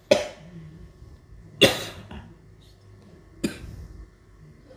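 A man coughing three times, single sharp coughs about a second and a half apart, the last one weaker. The cough is the patient's long-standing, persistent cough.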